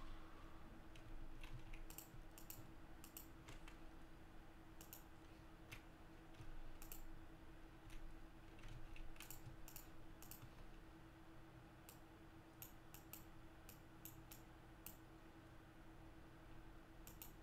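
Faint, irregular clicks of a computer mouse and keyboard, some in quick pairs, over a low steady hum.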